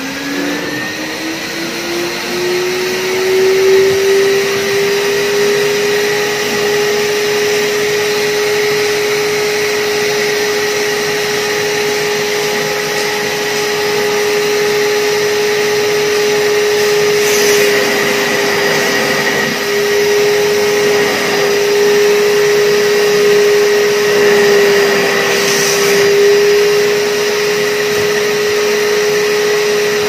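Euroclean WDX2 wet-and-dry vacuum cleaner's motor spinning up with a rising whine, then running steadily with a strong suction hiss. Two brief louder hisses come in the second half, and the motor cuts off at the end.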